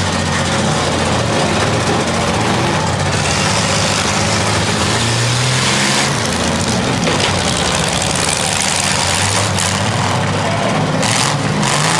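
Six-cylinder demolition derby car engines running and revving, their pitch rising and falling over a steady rush of noise.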